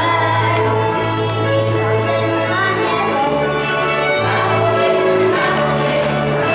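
Lively folk-song music led by fiddle, over a bass line that alternates between two notes.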